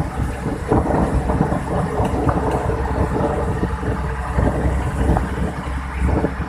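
A boat's engine running with a steady low drone, under irregular clattering and rough water washing against the hull.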